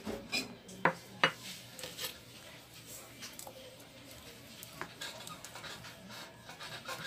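Kitchen knife cutting behind the head of a horse mackerel on a plastic cutting board. Two sharp knocks come about a second in, followed by lighter clicks and scrapes of the blade on the board.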